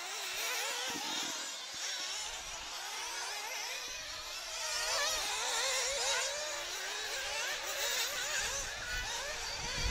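Several 1/8-scale nitro off-road buggy engines racing, a high buzzing whine that keeps rising and falling in pitch as the cars accelerate and back off around the track.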